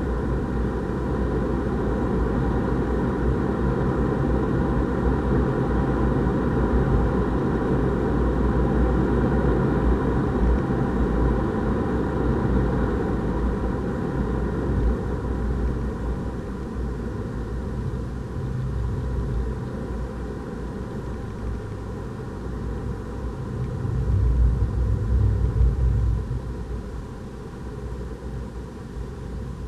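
Renault Clio RS 200's turbocharged 1.6-litre four-cylinder engine pulling hard at track speed, heard inside the cabin over the low rumble of tyres and road. It swells about 24 seconds in, then drops off near the end.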